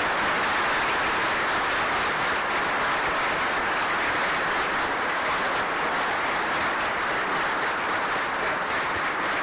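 Sustained applause from a large audience, a dense, even clapping that holds steady.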